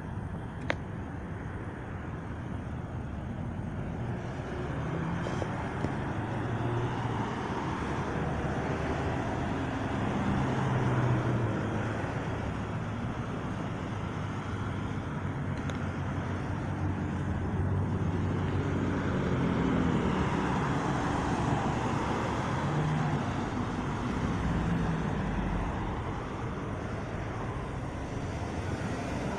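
Road traffic: cars passing on the street beside the pavement, a steady rumble that swells as vehicles go by, about ten seconds in and again about twenty seconds in. A single sharp click comes less than a second in.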